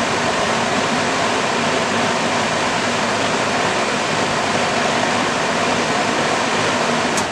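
Heavy thunderstorm rain falling steadily, an even hiss. A single click near the end.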